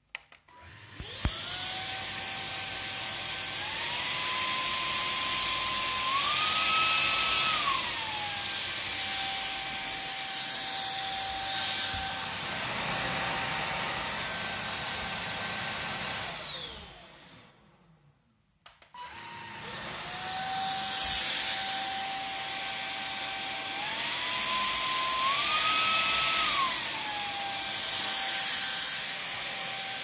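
Hosome cordless stick vacuum's motor starting and running with a high whine that speeds up in two steps and then drops back to its lower speed. About halfway through it winds down and stops, then starts again and goes through the same climb and drop.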